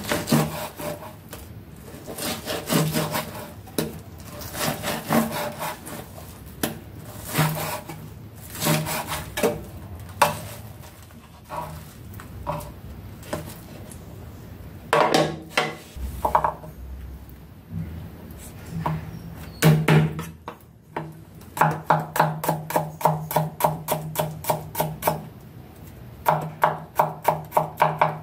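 Kitchen knife cutting raw pig lung on a wooden cutting board in uneven slicing and scraping strokes. In the last third it turns to fast, even chopping of garlic cloves on the board, about four strokes a second.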